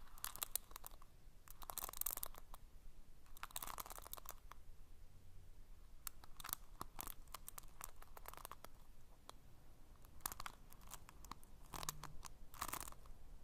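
Close-microphone ASMR 'invisible trigger' sounds: soft, crackly, crinkling noises made to imitate a sound, coming in short bursts with pauses between them.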